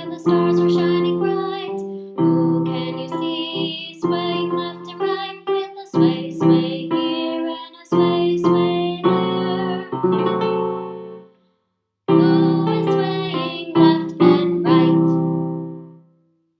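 Electric keyboard music playing the tune in held notes and chords, with a short break about eleven seconds in.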